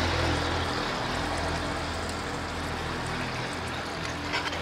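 Cooking liquid from boiled mutton and onions pouring through a strainer, a steady splashing pour that gradually eases off, over a faint low hum.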